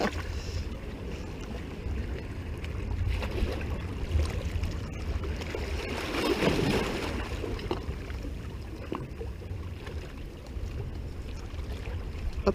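Small seawater waves washing and lapping against rocks at the waterline, with a fuller wash about six to seven seconds in, over a steady low rumble of wind on the microphone.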